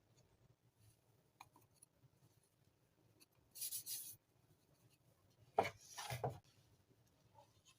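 Two brief scraping or rubbing sounds of hand work on materials, the second louder and starting with a sharp knock, with a few small clicks between them. No motor is running.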